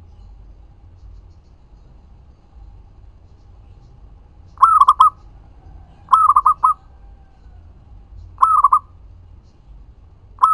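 Zebra dove (local perkutut) cooing: after about four and a half seconds of quiet, three short phrases of quick repeated coos come about a second and a half apart, and a fourth begins at the very end.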